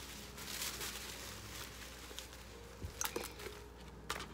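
A large sheet of thin white paper rustling and crinkling as it is spread out and smoothed flat by hand, with a few sharp clicks about three and four seconds in.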